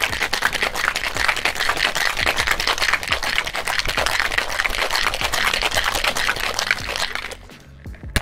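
Ice rattling and sloshing inside a metal cocktail shaker shaken hard to chill a drink, a fast continuous rattle that stops about seven seconds in.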